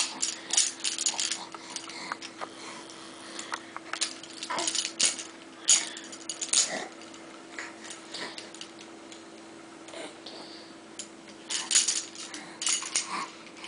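Plastic baby link rings clicking and clattering against each other in irregular bunches as a baby handles them, with a few short baby vocal noises.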